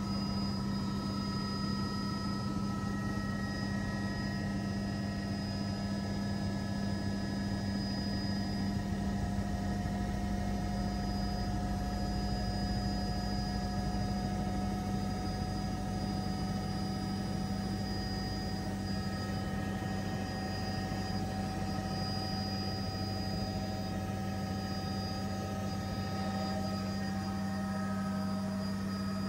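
Helicopter in flight heard from inside the cabin: a steady, unbroken drone of rotor and engine with a low hum and a faint high whine.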